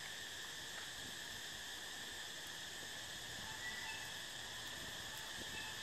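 Steady background chorus of insects, a constant high-pitched trilling hum, with a couple of faint brief chirps about four seconds in and near the end.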